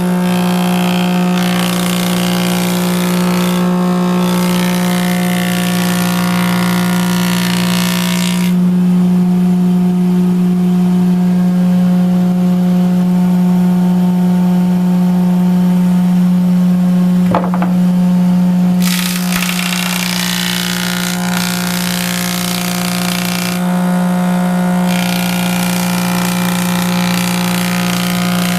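1915 Porter jointer running with a steady hum from its spinning three-knife cutterhead. Boards fed across it make a louder, harsher planing noise for about the first eight seconds and again from about two-thirds of the way in; in between the machine just spins. A single sharp click sounds about seventeen seconds in.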